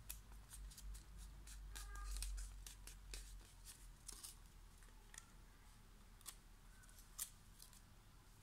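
A sheet of paper being folded and creased by hand for origami: faint, irregular crisp crinkles and taps.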